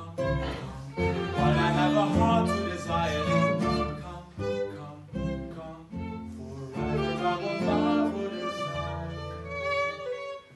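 Live acoustic trio of violin, acoustic guitar and double bass playing an instrumental passage, the violin carrying the melody in held bowed notes over the guitar and bass accompaniment.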